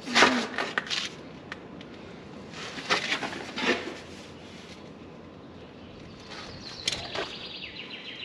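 Metal clanks and scrapes of a socket wrench with a long steel extension bar being fitted and heaved on a seized, rounded bolt on a power harrow's tine holder, in three short bursts. Near the end comes a quick run of metal clicks.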